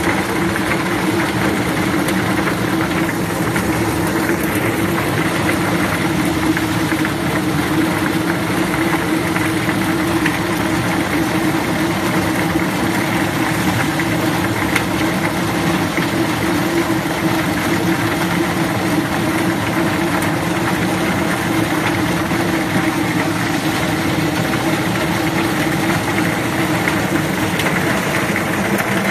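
Small chicken feet peeling machine running, churning a load of chicken feet in its stainless steel drum: a steady motor hum under a dense, continuous clatter.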